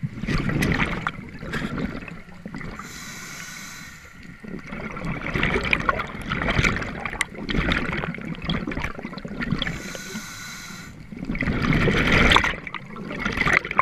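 A diver's breathing heard underwater: slow, regular breaths about every five to six seconds, each a hiss followed by a louder bubbling, gurgling rush of water.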